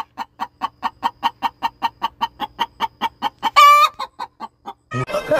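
Chicken clucking in quick, even pulses, about six a second, broken by one longer, louder cackle about three and a half seconds in; the clucking stops about a second before the end.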